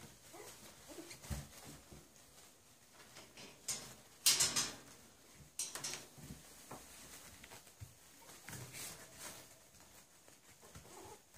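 Cavalier King Charles spaniel puppies scrambling about on puppy pads: light pattering and rustling, with one louder rustle about four seconds in.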